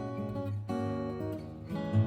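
Background music: acoustic guitar strumming chords over a steady bass.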